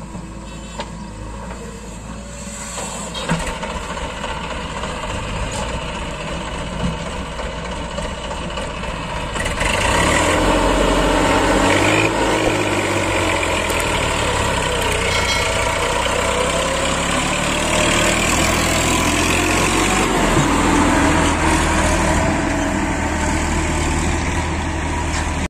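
Massey Ferguson 7250 Power Plus tractor's diesel engine pulling a fully loaded sand trolley. It gets much louder about ten seconds in and stays loud under load, its pitch rising and falling a little.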